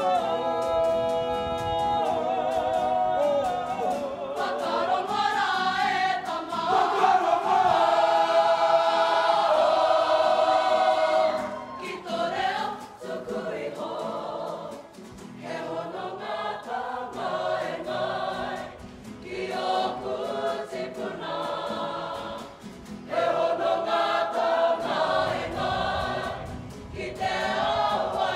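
Kapa haka group of men and women singing together as a choir. It opens with a held, wavering note, is fullest in the middle, then breaks into shorter sung phrases toward the end.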